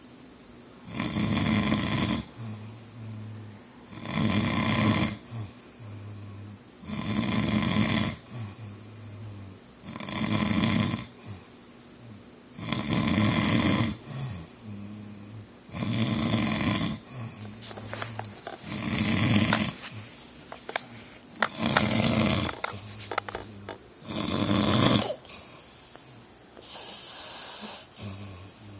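A sleeping man snoring loudly in a steady rhythm, about one snore every three seconds. Each loud rasping in-breath is followed by a quieter, lower buzzing breath. A few light clicks come through in the middle.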